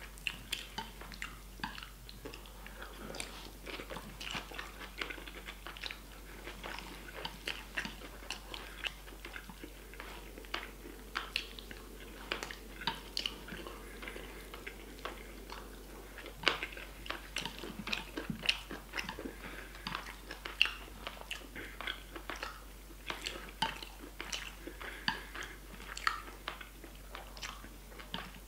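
A person chewing mouthfuls of rice with stir-fried chicken and vegetables close to the microphone: wet, irregular mouth sounds with many short, sharp clicks and smacks.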